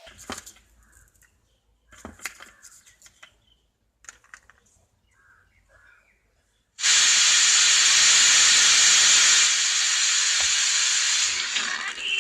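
Homemade analog FM radio receiver being tuned across the band through its speaker: a few faint crackles and snatches of sound, then, about two-thirds of the way in, a sudden loud steady hiss of static between stations.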